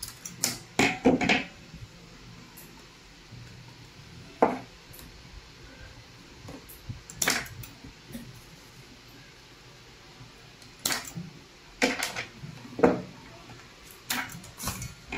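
Hand wire stripper clicking and snapping as it cuts and pulls the insulation off electrical wires: sharp metallic clicks at irregular intervals, several in a quick cluster about a second in and again near the end.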